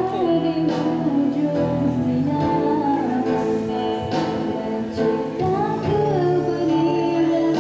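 A woman singing into a microphone over backing music, with long held notes that bend up and down.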